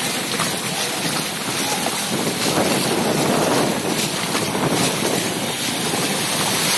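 Steady rushing noise of heavy rain and wind buffeting the microphone over a flooded street, swelling a little between about two and four seconds in.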